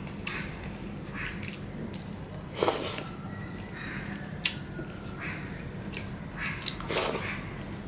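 Wet squelching of a hand mashing and mixing rice into thin masoor dal in a steel plate, in short irregular squishes, the loudest about a third of the way in and near the end. A steady low hum runs underneath.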